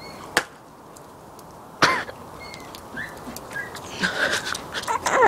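A raw egg smashed on a person's head: a sharp crack shortly after the start, then a loud cough-like grunt and breathy vocal noises.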